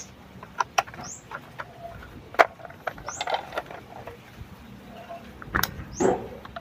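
Hard plastic toy parts clicking and knocking as they are handled and fitted together, with one sharp click about two and a half seconds in the loudest and a cluster of knocks and rubbing near the end. Three short, high rising chirps sound through it.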